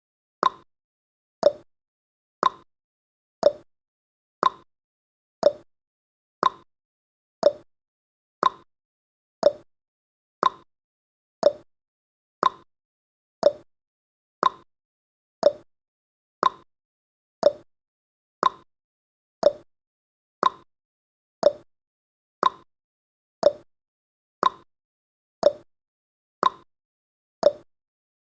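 Countdown timer's tick sound effect: a short, sharp click once a second, evenly paced.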